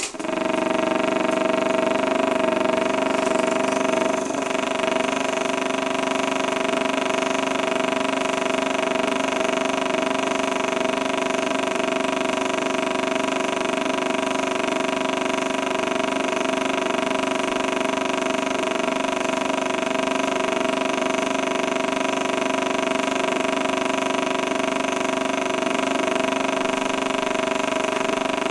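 A steady mechanical drone holding several constant pitches, like a motor running at an even speed without let-up.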